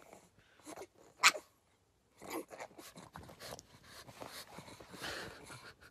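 Pug scrabbling about on a bed, its paws rustling and scratching at the blanket from about two seconds in. A single sharp, short snap about a second in is the loudest sound.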